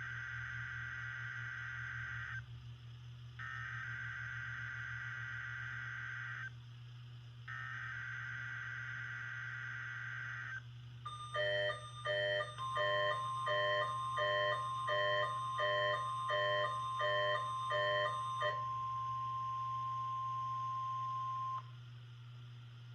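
NOAA Weather Radio weekly test signal: three bursts of the SAME digital header, a warbling data screech about 3 s long each with a second's pause between. Then a rapid run of about ten electronic beeps overlaps a steady 1050 Hz warning alarm tone. The tone holds for about nine seconds and cuts off suddenly. A low hum sits under it all.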